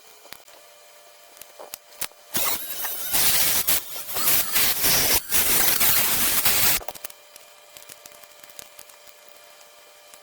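A small drill or rotary tool grinding away burnt, crumbling circuit-board material, running for about four and a half seconds from about two seconds in. Faint clicks of handling come before and after it.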